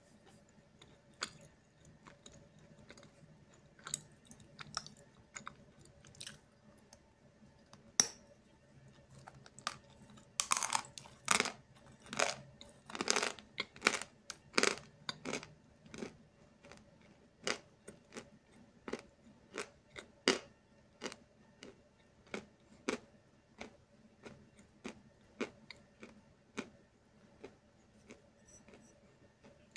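Crunching and chewing of a lump of Snezhok chalk: irregular sharp crunches, coming thick and loudest from about ten to sixteen seconds in, then spaced out again.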